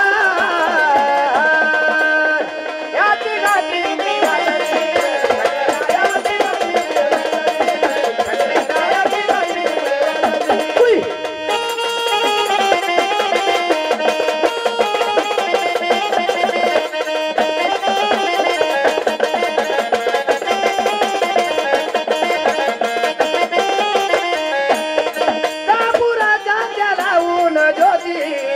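Marathi gondhal devotional folk music: a wavering melody over fast, dense drumming and percussion.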